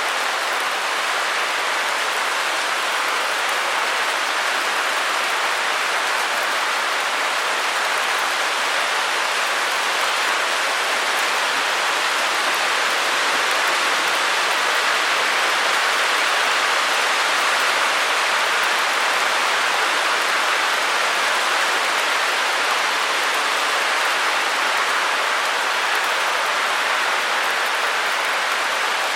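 Steady, unchanging white-noise hiss with little low rumble and no separate drops or clicks.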